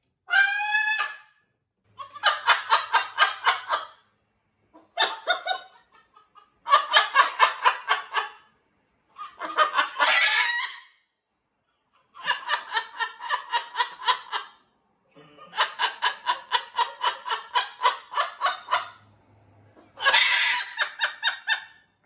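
Macaw calling in short bursts of rapid, evenly pulsed chuckling calls, about eight pulses a second, each burst one to two seconds long, with a short rising call at the start.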